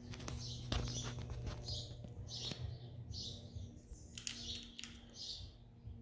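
A bird chirping over and over, a short high call about once a second, over a low steady hum. A few sharp clicks of handling sound in the first half.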